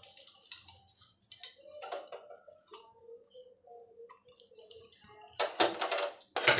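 Hot ghee crackling and sizzling around two dried red chillies in a small steel tadka pan. Near the end comes a louder burst of metal scraping and clatter as the pan, held in tongs, is set back on the gas-stove grate.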